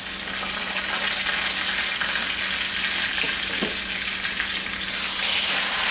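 Pressed chicken frying in butter and oil in a cast iron skillet, a steady sizzle that gets louder near the end.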